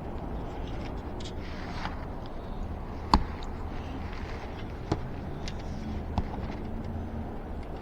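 A few sharp clicks and knocks of a pump hose being handled and fitted onto a bicycle tire valve, the loudest about three seconds in, over a steady low hum.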